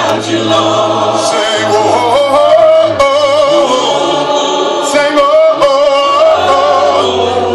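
Congregation singing a praise song a cappella, many voices in harmony with a male song leader's voice amplified through a PA above them.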